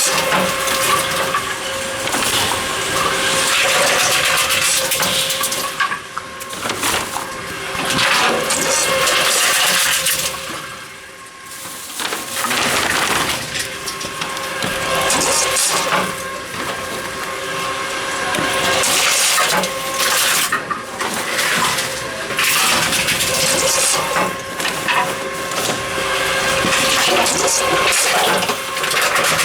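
Tomra T-53 reverse vending machine taking in returned containers: a steady machine hum under dense rattling and crunching as bottles and cans go through it, with brief lulls twice.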